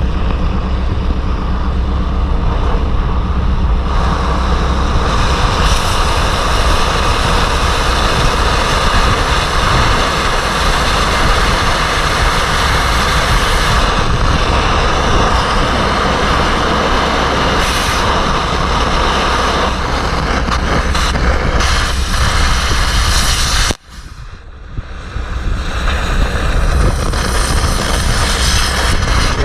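Loud, steady, harsh roar of carbon arc air gouging on the steel of a Caterpillar 416 backhoe boom, cutting out the crack before it is welded. It stops suddenly about three-quarters of the way through, then starts again and builds back up.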